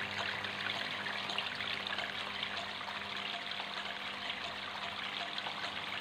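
Water trickling steadily from several small spouts of a homemade cement mini tabletop fountain, falling in thin streams into its pebble basin.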